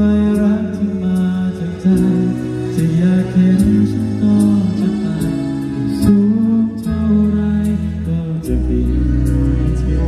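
Slow ballad played live through stage loudspeakers: held chords over a steady bass line, with light cymbal strokes.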